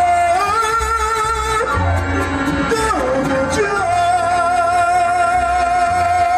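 Mariachi band playing, with sustained melody notes over a pulsing bass. A long note is held with vibrato through the second half.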